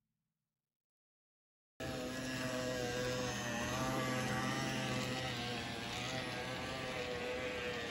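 Diesel locomotive engine sound, a steady drone with a slightly wavering pitch, cutting in abruptly after about two seconds of silence.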